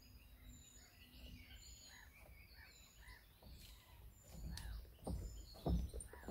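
Small birds chirping and singing throughout, with footsteps thudding on wooden jetty boards in the second half, growing louder as the walker comes closer.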